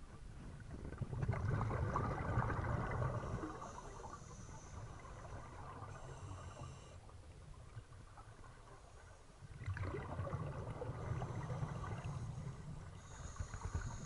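Scuba diver's regulator exhaling underwater: two bursts of bubbling, each about three seconds long, one about a second in and the next near ten seconds, with quieter inhalation between.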